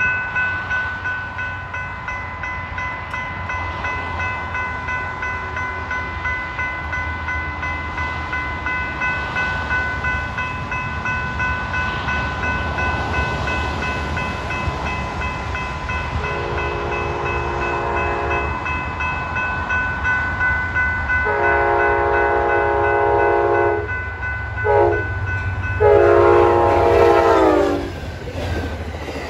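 Railroad crossing bell ringing steadily while an approaching Amtrak train's Genesis locomotive sounds its horn in the grade-crossing pattern: long, long, short, long. The last blast, the loudest, drops in pitch as the locomotives pass, and the rumble of the train going by follows.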